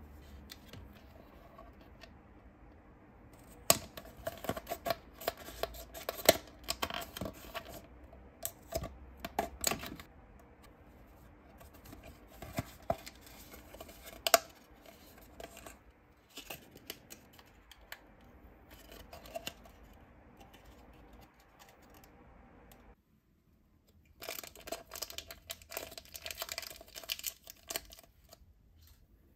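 Hands handling a candy kit's packaging: creasing and folding a paperboard tray and rustling foil powder sachets, with bursts of sharp clicks and crinkles. Near the end, a foil sachet is torn open with a crinkly ripping.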